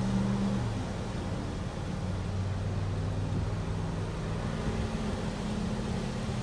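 Steady low hum and rumble inside a stopped vehicle with its engine and fan running.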